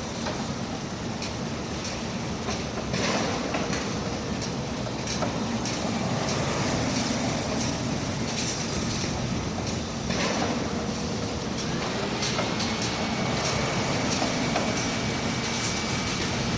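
Skyscraper construction site noise: a steady mechanical din with scattered metal knocks and clanks, and a thin whine that comes in about twelve seconds in.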